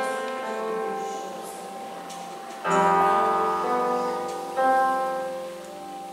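Electronic keyboard playing slow, sustained chords as soft background music. Each chord fades slowly until a new one comes in, under three seconds in and again about two seconds later.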